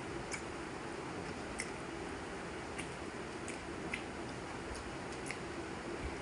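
A person eating a rice meal: soft chewing and squishing with a few small clicks at irregular intervals, over a steady background hiss.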